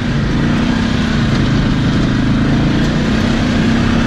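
Polaris ACE 570 single-seat side-by-side's single-cylinder engine running at a steady speed, an even drone that neither rises nor falls.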